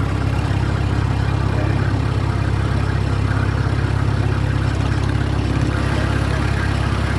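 A passenger boat's engine running steadily under way, a constant low hum with the rush of the river and wind mixed in.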